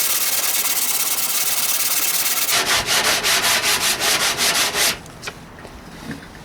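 Sandpaper rubbing over the primed steel front fender of a 1968 AMX: a steady scrape at first, then quick back-and-forth strokes about four to five a second, stopping about five seconds in. The sanding takes the primer off the high metal, leaving the low spots still coated.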